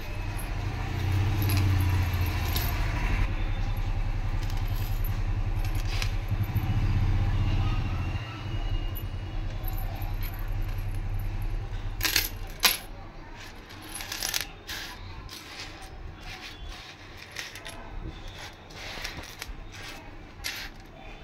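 Silver anklet chains clinking and jingling against each other as they are handled, with sharp metallic clinks from about halfway on. A low rumble runs under the first third.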